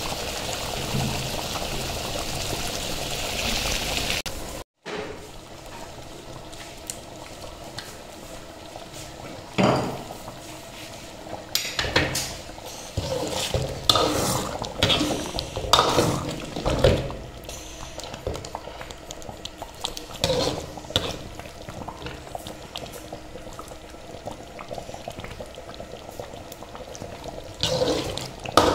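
Thick paneer gravy bubbling and simmering in a pan, then a spoon stirring through it, with irregular scrapes and knocks against the pan from about ten seconds in.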